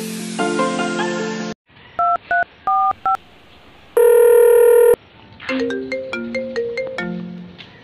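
Intro music stops, then a few short phone keypad beeps of a number being dialled, a steady ringing tone about a second long, and a mobile phone's melodic ringtone that starts near the end and keeps playing.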